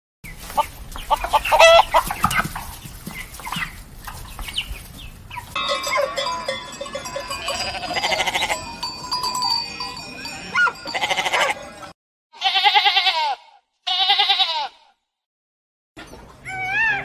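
A series of different animal calls, one clip after another, ending with two short separate calls about thirteen and fourteen seconds in.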